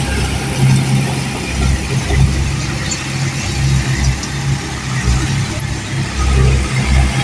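Bulldozer's diesel engine running, a low rumble that swells and fades unevenly.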